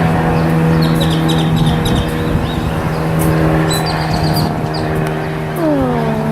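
A steady motor hum, like an engine running, with one low tone and several higher ones. Its pitch drops briefly near the end. Small birds chirp in short runs about a second in and again about four seconds in.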